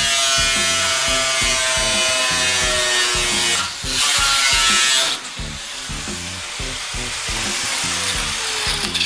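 Electric angle grinder cutting through thin sheet steel, a loud, steady grinding whine with a short break a little over three seconds in. About five seconds in the cut ends and the grinder winds down, its whine slowly falling in pitch.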